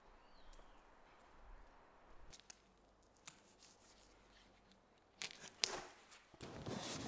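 Acoustic insulation being handled and fitted into the door cavity: mostly quiet at first, then about five seconds in a few sharp crisp rustling snips, followed by a softer steady rustle.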